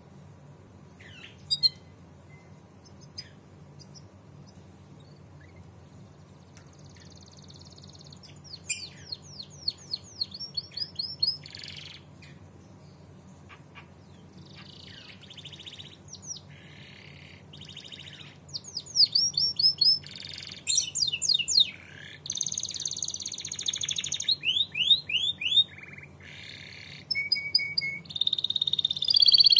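Domestic canary singing: a few scattered chirps at first, then from about eight seconds in rapid trills and fast runs of repeated sweeping notes, growing denser and louder through the second half.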